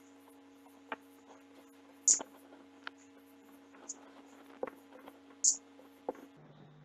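Whiteboard marker squeaking and tapping as small circles are drawn, with two louder, high squeaks about two and five and a half seconds in. A faint steady hum runs underneath.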